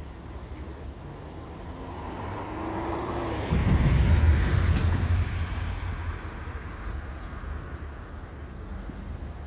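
A road vehicle passing by: its noise swells to a peak about four seconds in, then fades away over the next few seconds.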